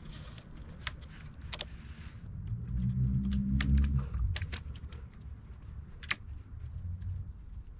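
Scattered light clicks and taps, as of small parts and tools being handled during a mountain bike build. A low hum swells for about a second and a half in the middle.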